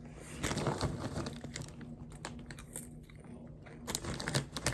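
Someone chewing popcorn close to the microphone: irregular crunching bites, busiest about half a second in and again near the end, over a steady low hum.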